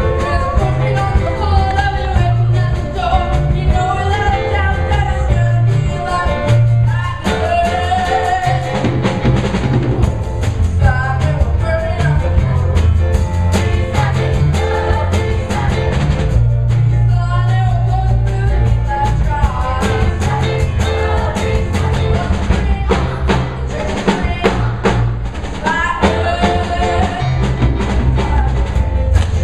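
A rock-and-roll stage song sung by a cast of young voices over accompaniment with a steady drum beat.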